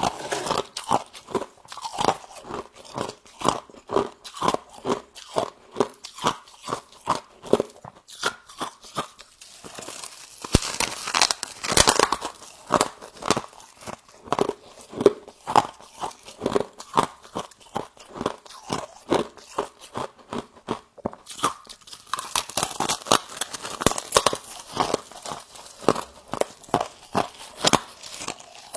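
Frost being bitten and chewed close to the microphone: a steady run of crisp crunches, about two a second, with busier, crisper stretches of crunching twice along the way.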